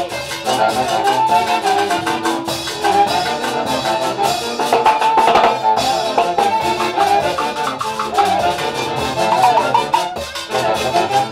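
Live orchestra music: wind instruments play the melody over drums and percussion in a steady dance rhythm, with one sharp percussion stroke about halfway through.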